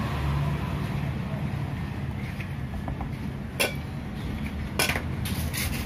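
Steady low rumble of road traffic, with a few sharp clicks and knocks in the second half.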